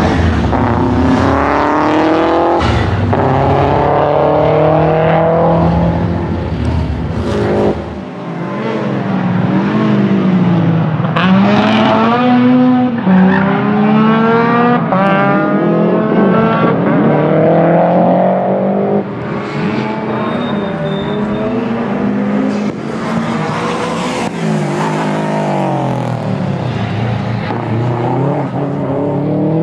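Subaru Legacy RS Group A rally car's turbocharged 2.0-litre flat-four boxer engine revving hard and falling back again and again as the car accelerates, shifts and brakes; the pitch climbs in repeated sweeps and drops between them.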